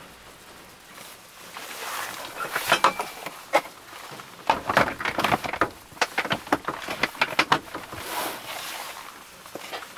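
Hard plastic box being handled in the back of a van: a quick run of knocks, clicks and clatters as it is lifted, shifted and set down, with clothing rustling around it.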